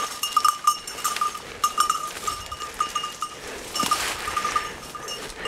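Small bell on a hunting Brittany spaniel's collar jingling in quick, irregular strokes as the dog works through the cover. The strokes thin out over the last second.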